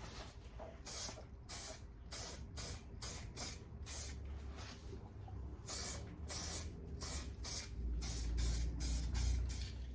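Aerosol can of grey primer sprayed in many short hissing bursts, about two or three a second, with a pause about halfway. It is priming the bare metal inside a car body cavity against rust.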